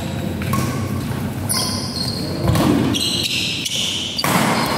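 Doubles badminton rally: rackets hitting the shuttlecock, and shoes squeaking sharply on the court about one and a half and three seconds in.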